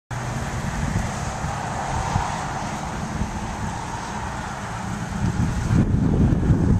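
Steady hiss of road traffic mixed with wind noise on the microphone. Low wind buffeting grows louder near the end.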